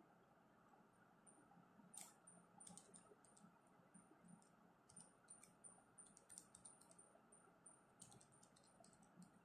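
Faint quick clicking of calculator keys being pressed, in several short runs.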